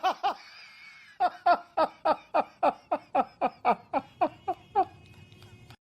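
Laughter: a rapid, even run of 'ha' bursts, about four a second, each falling in pitch, after a brief wavering high tone. It cuts off abruptly near the end.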